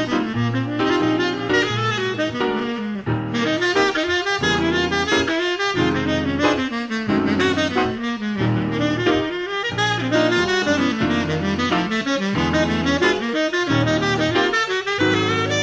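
Jazz quartet recording: a saxophone plays quick, busy runs over a moving double-bass line.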